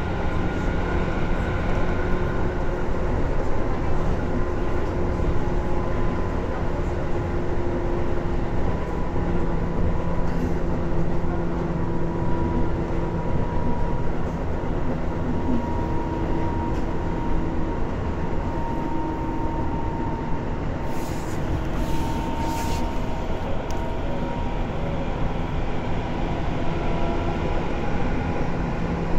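Tobu 10030 series electric train running at speed, heard from inside the car near its under-floor line breaker: a loud, steady rumble from wheels and track with a few steady humming tones. A few brief hisses come about two-thirds through.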